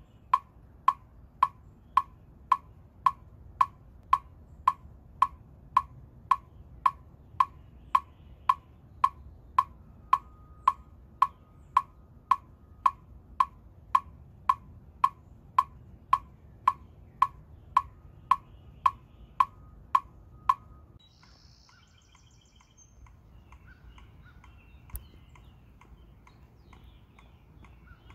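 Metronome-style wood-block clicks, steady at about two a second, that stop about two-thirds of the way through; after that only faint background with a few brief high chirps and one small click.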